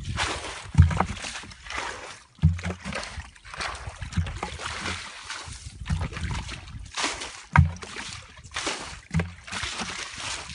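Muddy water and wet mud splashing as hands scoop and slap through a shallow puddle, in repeated bursts with a few low thuds among them.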